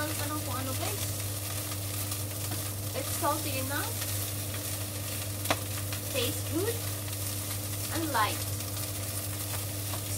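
Fried rice sizzling in a pot while a wooden spatula stirs and scrapes through it, over a steady low hum. A single sharp knock comes about halfway through.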